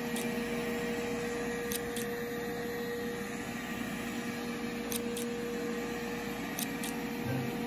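A steady motor-like hum with a single held tone, and a few faint sharp snips in pairs from scissors trimming a dog's fur.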